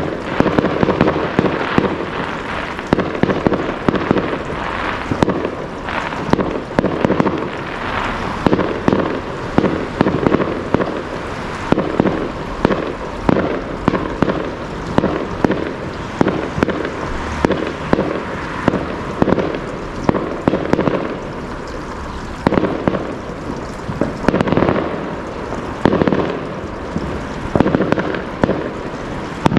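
Fireworks going off without a break: dense crackling with many sharp bangs in quick succession.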